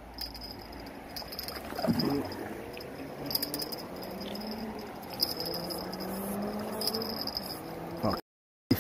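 Fishing reel clicking and rattling while a hooked pike is being played, in short repeated bursts over a faint low drone. The sound cuts out completely for about half a second near the end.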